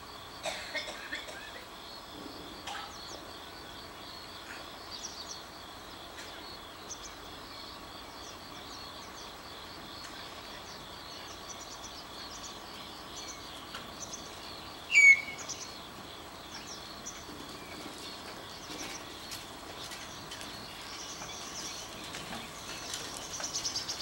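Black-collared starlings calling: scattered short, high chirps, one loud sharp call about fifteen seconds in, and a run of chattering calls near the end. A steady, pulsing high drone runs underneath.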